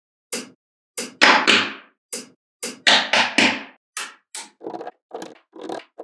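Small magnetic balls clicking against each other as they snap together: about a dozen sharp clicks, with two longer rattling clatters about a second and about three seconds in.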